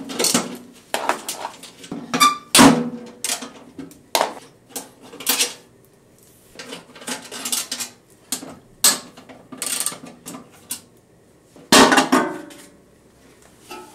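Irregular metal clinks and clatter as nuts and the sheet-metal top cover of a Toyota Prius hybrid battery pack are handled, with one brief ringing clink about two seconds in. A longer, louder rattle near the end as the cover is lifted by its edges.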